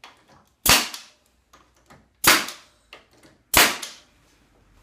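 Brad nailer firing three times, about a second and a half apart, each a sharp crack, driving brads to hold a freshly glued piece to the wooden cart frame.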